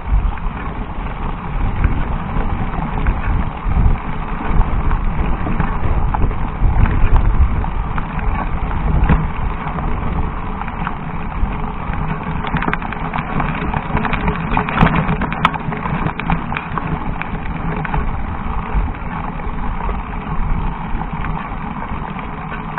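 A mountain bike climbing a rocky dirt trail: the tyres crunch over stones and the bike rattles and knocks on the rough ground, with a steady rumble of wind and ride noise on the microphone.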